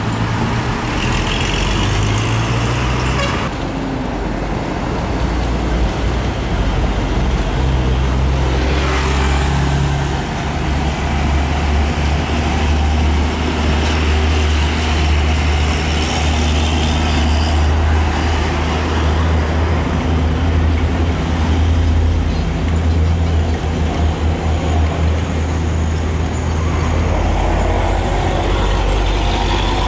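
Road traffic with heavy diesel trucks passing close by. Their engines run with a loud, steady low drone that is strongest in the middle, as a truck towing a trailer goes past.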